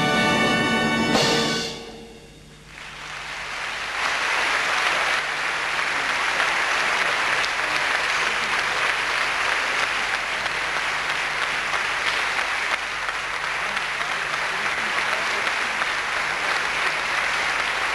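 An orchestra ends on a final chord in the first two seconds, then an audience breaks into applause that builds over a couple of seconds and carries on steadily.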